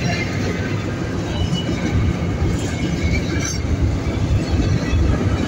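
Double-stack intermodal freight train passing close by: a steady rumble and clatter of the container well cars' wheels on the rails.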